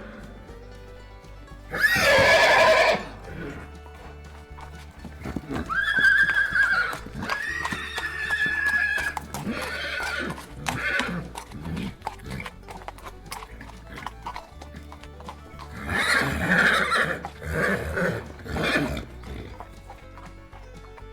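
Horses neighing several times. There is a loud call about two seconds in, drawn-out whinnies through the middle, and a cluster of calls near the end, with hooves clopping and background music throughout.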